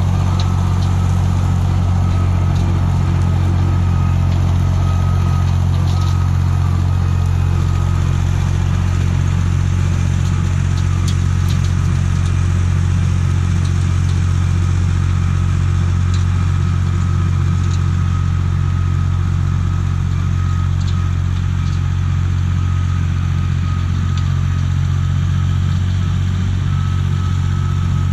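Allis Chalmers 5050's three-cylinder diesel engine running steadily while driving a 6-foot Woods Brushbull rotary cutter: a constant low drone that eases slightly in the second half.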